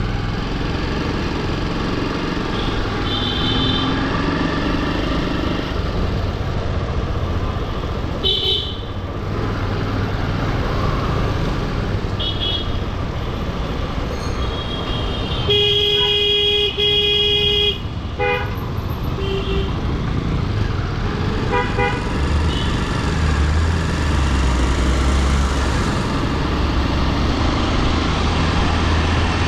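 Road traffic noise with vehicle horns honking several times, including one long horn blast about halfway through and a few short toots after it.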